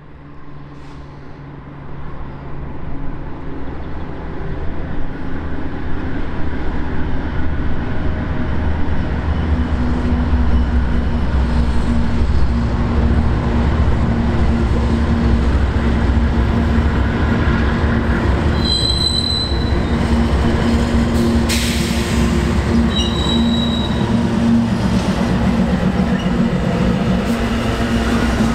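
A diesel-hauled freight train passing close by: the locomotive's engine hum grows louder over the first ten seconds as it approaches, then boxcars roll past with steady wheel rumble. A few brief high wheel squeals come about two-thirds of the way through, with a sharp clank between them.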